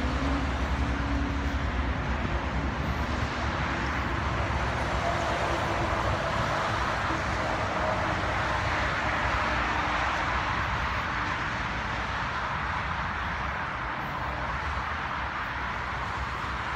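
Steady noise of road traffic, with no distinct events standing out.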